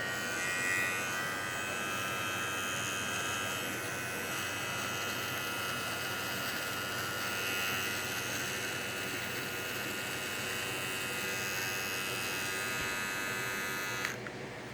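Manscaped Lawnmower 3.0 electric body trimmer running with a steady buzz as it shaves leg hair. It switches off near the end.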